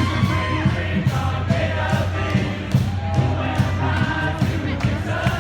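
Street band playing live: a held low note under melody lines and a regular drum beat, with crowd noise mixed in.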